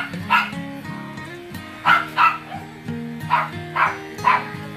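A dog barking in short, sharp barks that come in quick pairs, about eight in all, over background music with sustained notes.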